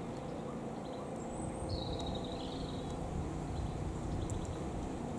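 Steady low outdoor rumble, with a short high bird call about two seconds in and a fainter thin chirp just before it.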